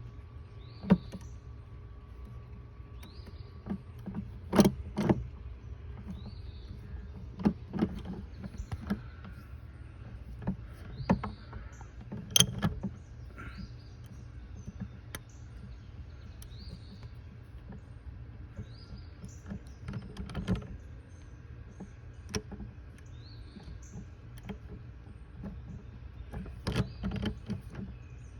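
Scattered clicks and knocks of tools and parts being handled at the oil filter during an oil change, over a steady low hum. Short faint high chirps come every couple of seconds.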